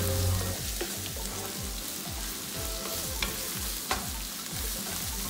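Sliced onions sizzling in hot oil in a frying pan while a wooden spatula stirs them, with a few light clicks of the spatula against the pan.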